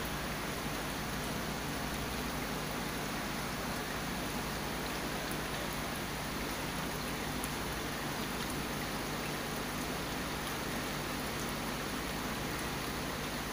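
Saltwater aquarium water running and bubbling steadily, with a low steady hum underneath.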